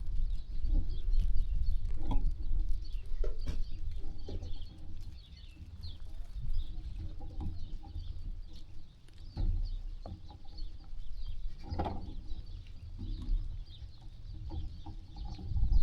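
Farm ambience: scattered short calls of farm animals and small chirps of birds over a steady low rumble, with a louder short call about two-thirds of the way through.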